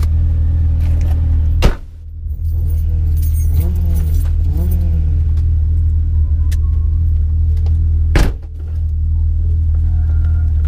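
Car engine running steadily at a constant pitch, with two sharp knocks, one a couple of seconds in and another about eight seconds in.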